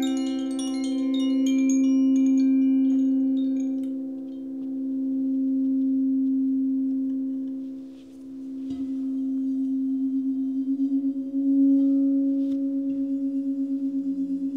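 Crystal singing bowls sounding a steady low tone with overtones that swells and fades every few seconds, while high chiming tones die away in the first few seconds. About nine seconds in there is a soft knock, then the tone wavers and beats as another bowl joins and the sound grows louder.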